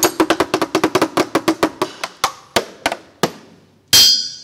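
Intro sound effect: a quick run of ratchet-wrench clicks that gradually slows down, then one loud, bright metallic hit with a ringing tail about four seconds in.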